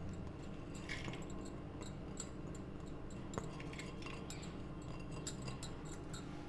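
Faint soft ticks and rustling of washed rice grains being tipped and scraped out of a glass bowl into a steel pressure cooker, over a low steady hum.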